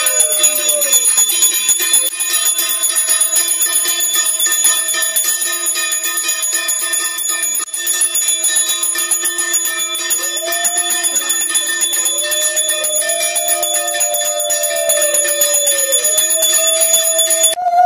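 Puja hand bell rung rapidly and continuously during the aarti, stopping abruptly just before the end. Over it are several long held tones that rise and fall in pitch.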